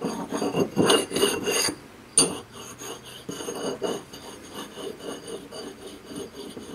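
Steel plate scraping and sliding against a steel block as it is handled, a run of rough rubbing strokes with one sharp metal clink about two seconds in, then quieter rubbing.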